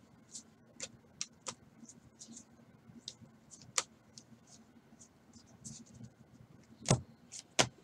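Stack of 2018 Topps baseball trading cards being thumbed through one card at a time, each card flicking off the pile with a short, crisp click at irregular intervals. Two louder snaps come near the end.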